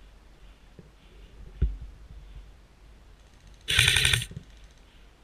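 Airsoft rifle firing a short full-auto burst about two thirds of the way in: rapid, evenly spaced clicks for about half a second. Before it there is a single soft thump.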